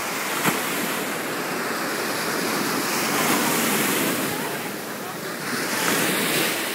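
Small surf waves breaking and washing up the shallows of a sea beach, a steady rush that swells twice, a few seconds in and again near the end. A brief sharp knock about half a second in.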